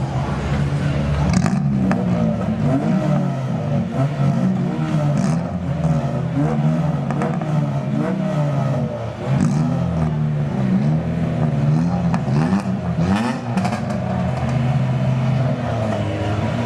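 Car engines idling and being revved, their pitch rising and falling, with a few sharp clicks here and there.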